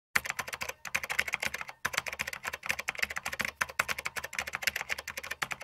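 Fast computer keyboard typing: a rapid run of keystroke clicks, broken by two brief pauses about one and two seconds in.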